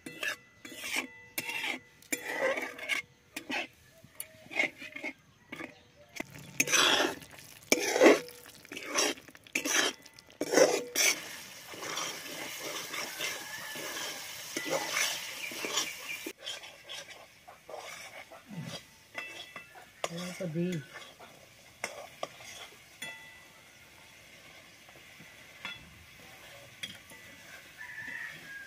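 A flat metal spatula scraping and clinking against a metal kadai as an orange spice paste is stirred and fried, with the paste sizzling. The strokes come thick and fast in the first half, then ease off to a quieter sizzle with only occasional scrapes.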